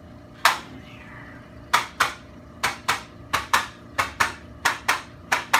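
Handheld chiropractic adjusting instrument delivering taps to the neck: a run of sharp mechanical clicks, one on its own and then about a dozen more in quick pairs about a quarter second apart.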